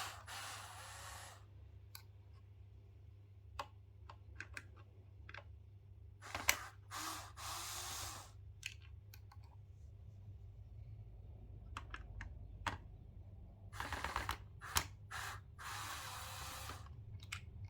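Light clicks, taps and four short scraping rustles as a driver is worked loose from a plastic home theater speaker cabinet by hand, over a faint steady low hum.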